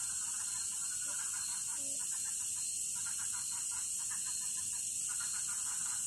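Night chorus of frogs and insects: a steady high-pitched insect drone under rapid, pulsing frog calls that swell and fade in stretches.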